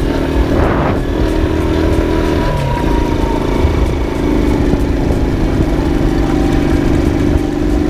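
Honda TMX 155's single-cylinder four-stroke engine running steadily under way, its note dipping briefly about two and a half seconds in before picking up again. Wind buffets the microphone throughout.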